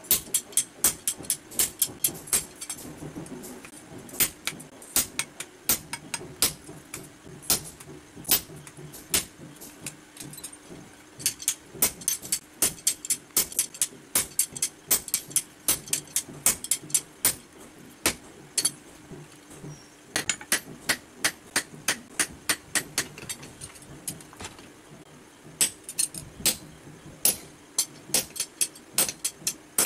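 Blacksmith's hand hammer striking red-hot steel on an anvil while forging a basula (carpenter's adze) blade: a quick run of sharp metallic blows, about three a second, broken by a few short pauses.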